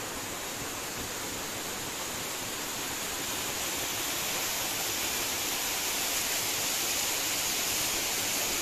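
Water rushing and splashing over rocks in a mountain forest stream, a steady hiss that grows gradually louder toward the end.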